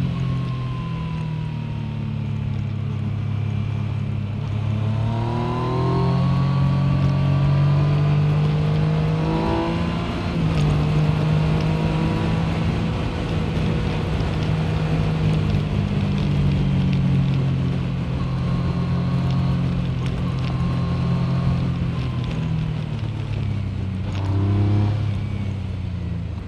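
Yamaha MT-09's three-cylinder engine running under way, rising in pitch as it accelerates a few times and settling between, with wind noise.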